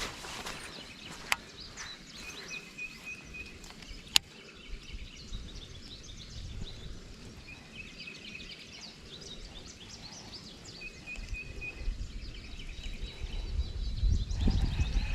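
Birds singing outdoors: one bird repeats a short, even high trill about four times, with other small chirps around it. Two sharp clicks come in the first few seconds, and a low rumble rises near the end.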